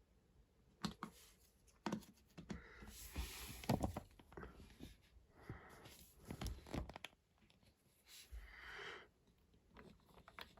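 Faint, scattered clicks and knocks with brief rustling: plastic marble-run pieces and marbles being handled.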